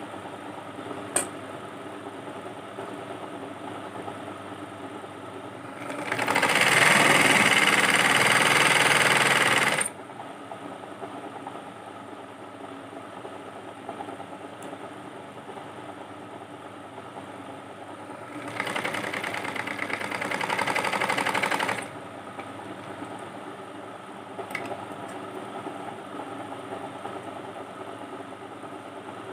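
Black domestic straight-stitch sewing machine stitching in two runs, the first about four seconds long and the second about three, over a steady mechanical hum. A single sharp click comes about a second in.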